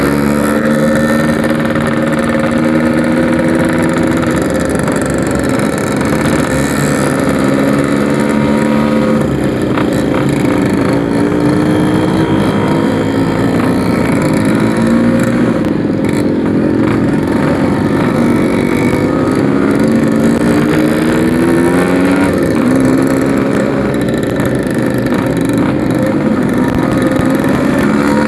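Yamaha RX King's 135 cc two-stroke single-cylinder engine running while riding, its pitch rising and dropping again and again as the throttle opens and gears are changed.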